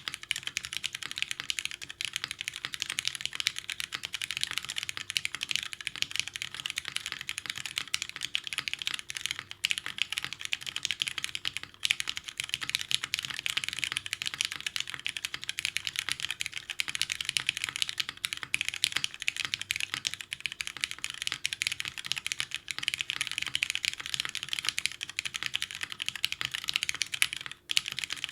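Fast continuous typing on a TGR 910 ME mechanical keyboard with lubed Cherry MX Brown tactile switches, a top-mounted aluminium plate with no dampening, and GMK keycaps: a dense run of key clacks with a short break near the end.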